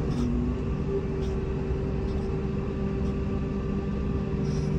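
Komatsu WA270 wheel loader's diesel engine running steadily under load while it pushes snow with its plow, a deep rumble with a constant tone running through it.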